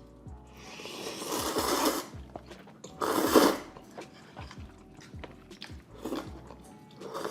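Close-miked eating: big bites and crunchy chewing in irregular bursts, the loudest crunch about three seconds in, with softer chews after.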